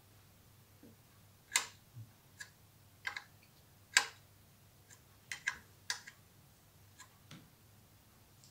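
Irregular sharp metallic clicks and taps, about a dozen, of a wrench, bolt and alternator case knocking together as an alternator is bolted onto its mounting bracket.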